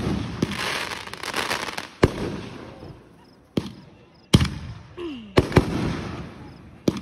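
Fireworks going off: a string of sharp bangs, about one a second, with a crackling shower lasting over a second after the first bang.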